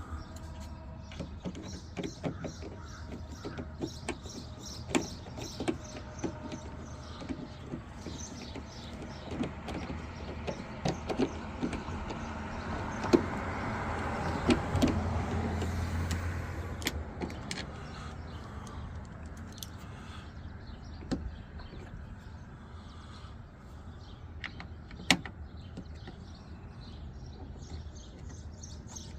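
Scattered clicks and light knocks of tools and latch hardware against a pickup truck's door while screws are worked into a door latch. A low rumble swells up and fades away about halfway through.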